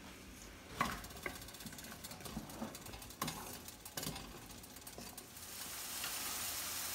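Diced red onion sizzling in hot oil in a nonstick pan, stirred with a wooden spatula that knocks and scrapes against the pan a few times. The sizzle grows louder over the last couple of seconds as the onion starts to fry.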